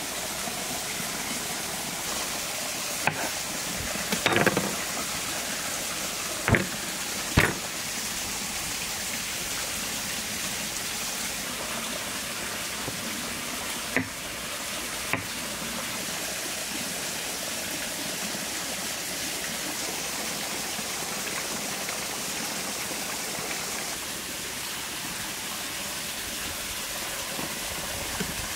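A stream rushing steadily, with a handful of short, sharp knocks of a knife and meat against a wooden cutting board.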